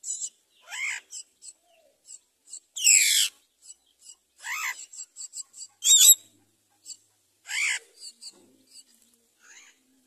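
Common myna nestlings begging at the nest as they are fed: five loud, short calls spaced one to two seconds apart, with quick chirps and clicks between them.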